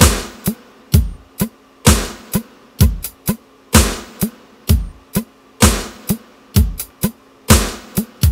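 Electronic drum-machine beat from a MIDI test sequence: a kick drum that drops in pitch about once a second, with short hi-hat and snare hits between, over a faint held low synth tone.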